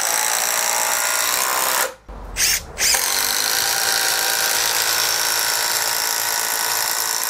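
Makita TD173D 18 V cordless impact driver hammering as it drives long timber screws into a timber beam. It stops about two seconds in, gives a short blip, then runs steadily again as the screw goes in.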